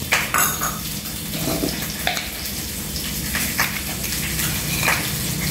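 A spoon and small ceramic bowls tapping and clinking a few times, as short sharp clicks over a steady background hiss.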